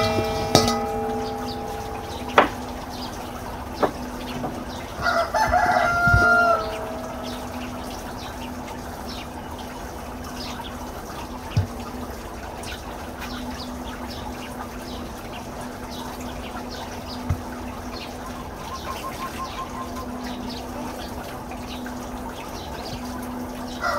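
A rooster crowing twice, once at the start and again about five seconds in, over a steady low hum. A few sharp knocks come in between.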